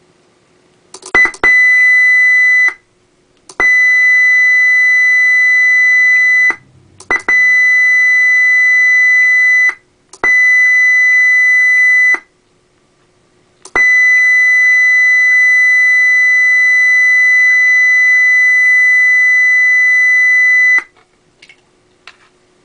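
Federal Signal Touchmaster Delta electronic siren sounding a loud, steady, buzzy tone that does not rise or fall, in five separate blasts of about one and a half to seven seconds, the last one longest. Each blast opens with a sharp click.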